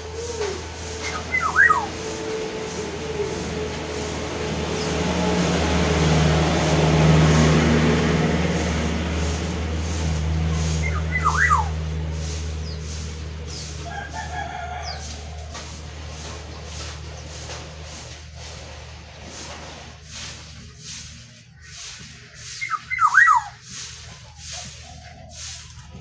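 Brown-chested jungle flycatcher giving a short, sharp call of two or three quick notes, three times about ten seconds apart, over a steady low hum. A broad rushing noise swells and fades in the first half.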